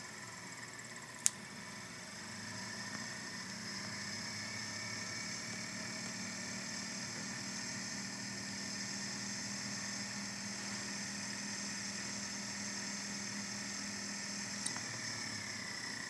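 Universal AC/DC motor of a vintage Hoover Constellation vacuum cleaner running on a 9-volt battery held to its plug: a steady whine over a low hum. A sharp click about a second in, and another near the end as the battery comes away, after which the whine starts to fall as the motor winds down.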